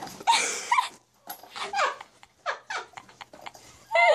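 Small puppy whimpering and yelping in a string of short, high cries that bend in pitch, several a second.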